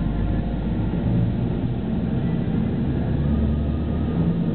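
Steady engine and road rumble of a moving bus, heard from inside the cabin.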